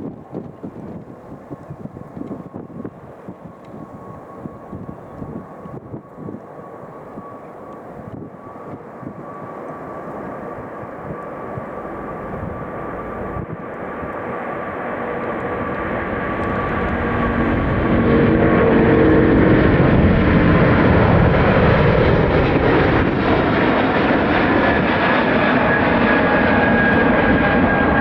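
Airbus A380 jet engines at takeoff power, a loud steady roar with a high whine, growing louder for about eighteen seconds and then staying at full strength. Wind buffets the microphone early on.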